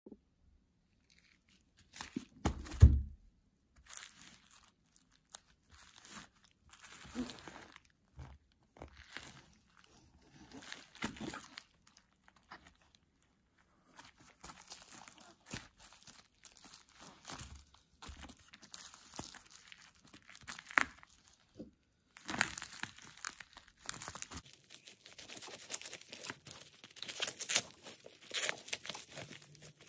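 A cardboard mailer wrapped in bubble wrap and packing tape being handled and opened: crinkling plastic and rubbing, scraping cardboard in irregular bursts, with a heavy thump about three seconds in. In the last several seconds a knife slits the packing tape and the crinkling gets busier and louder.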